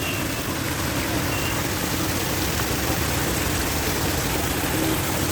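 Water from a decorative fountain splashing steadily, an even rushing noise with no breaks.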